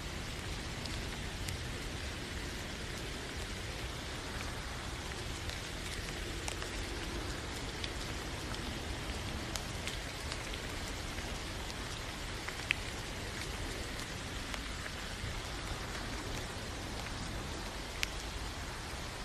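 Steady rain falling, an even hiss with individual drops ticking sharply here and there; two louder drop ticks stand out about two-thirds of the way through and near the end.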